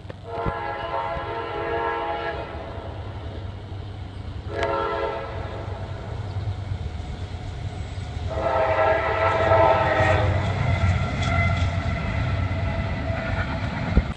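Diesel locomotive's multi-note air horn blowing for a road crossing: a long blast, a short one, then a longer one, over the low rumble of the approaching freight train. This is the crossing warning signal.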